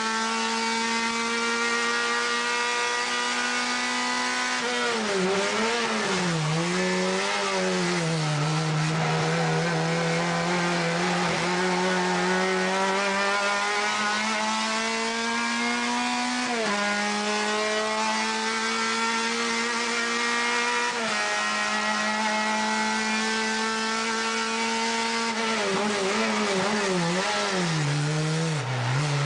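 Renault Clio 2 Superturismo race car engine heard from inside the cockpit, lapping at high revs. It climbs slowly in pitch along the straights, then dips and jumps quickly several times as it brakes and changes gear for corners.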